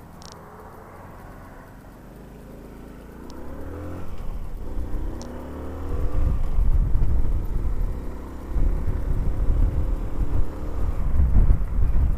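Honda C90 Cub's small single-cylinder four-stroke engine accelerating, its pitch rising several times as it goes up through the gears. Wind buffeting on the microphone grows loud from about four to six seconds in as speed builds.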